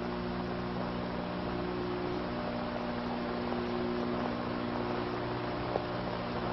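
Steady electrical mains hum over even hiss, the background noise of an old film soundtrack, with a couple of faint clicks.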